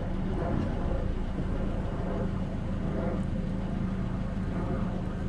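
A 2016 Toyota Corolla S's four-cylinder engine idling, a steady, even hum.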